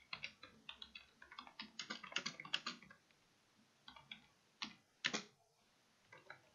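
Computer keyboard typing in bursts: a quick run of keystrokes for about three seconds, a pause, a few more keys between four and five seconds in, then typing again near the end.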